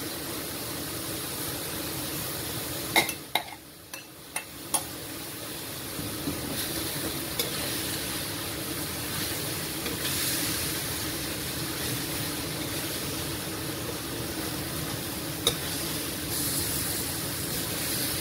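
Banana blossom, cassava leaves, chicken and tempeh being stirred into spice paste sizzling in a pan, with sharp clinks of the utensil against the pan: a cluster of them about three seconds in and a couple more later.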